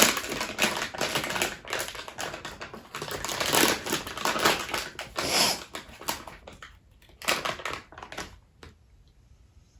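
A thin plastic bag crinkling and crackling as it is handled and opened, busy for the first several seconds, then sparser and fading out near the end.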